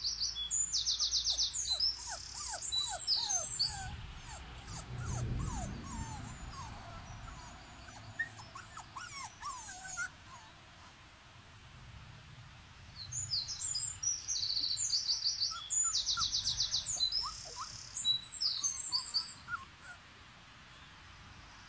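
Short high puppy whimpers and squeaks from border collie puppies, with a songbird singing rapid high trills in two spells, one at the start and one about two-thirds of the way in.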